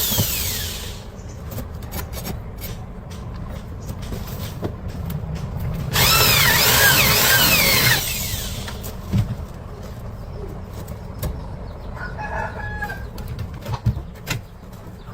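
Power drill boring into brick for an anchor hole: one burst tails off in the first second and another runs for about two seconds, starting around six seconds in. Scattered knocks fall between them, and a chicken calls faintly near the end.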